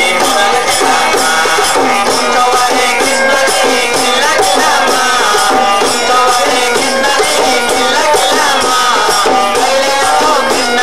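Devotional group music: a steady jingling, rattling percussion beat under a wavering melody line.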